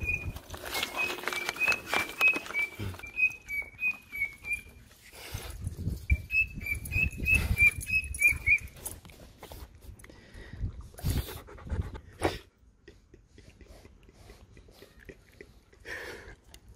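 A dog whining in two runs of short, high, wavering notes over the first half, with scuffs and knocks of paws moving on concrete; after that only occasional knocks.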